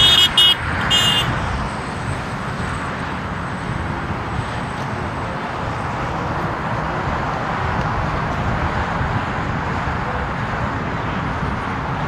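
A car horn gives three quick, high-pitched toots in the first second or so. After that, wind buffets the microphone with a steady, noisy rumble.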